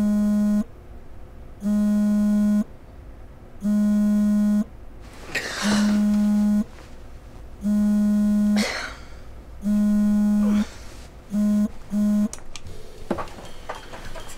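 An electronic alarm buzzer beeping in a low, buzzy tone, about one second on and one second off six times, then two quick short beeps. Two brief rushes of noise sound between the later beeps.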